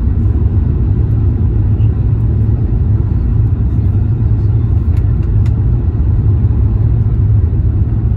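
Steady low cabin rumble of a British Airways Airbus A350-1000 on final approach, the Rolls-Royce Trent XWB engines and airflow heard from a window seat over the wing. Two faint clicks about five seconds in.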